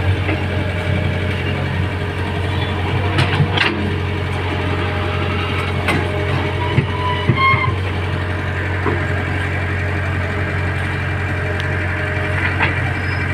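A vehicle engine running steadily at idle, with a few sharp knocks and clatters over it.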